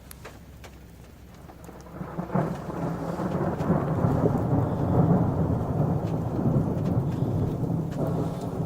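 Thunder from a lightning strike: a low rumble breaks in sharply about two seconds in, swells to its loudest midway, and rolls on, easing slightly near the end.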